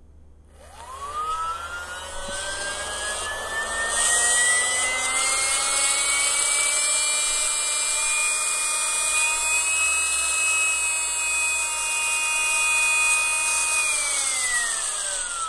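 Yivar rechargeable mini air pump running, driving air through a hose: its motor whine rises quickly as it spins up, holds a steady high pitch with an airy hiss for about thirteen seconds, then winds down in pitch near the end as the button is let go.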